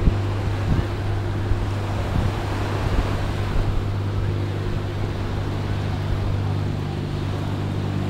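Small waves washing onto a sandy shore, with wind on the microphone, over a steady low drone.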